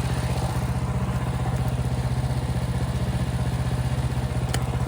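Portable sawmill's gas engine idling steadily between cuts, with one short click near the end.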